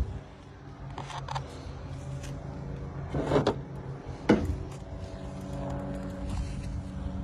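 A motor running steadily with a low hum. Over it, a scraping rustle a little past three seconds in and one sharp knock about a second later.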